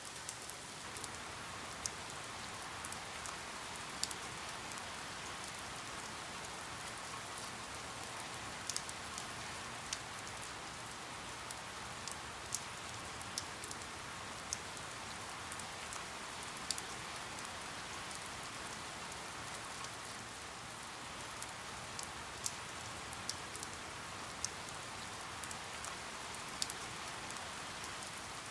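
Steady rain falling, an even hiss with scattered sharp drips and drop ticks standing out above it.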